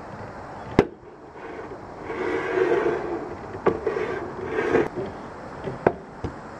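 Handling noise from a camera on a long pipe pole being pushed along inside a metal roof gutter: several sharp knocks and stretches of scraping and rubbing as the camera and pole bump against the gutter.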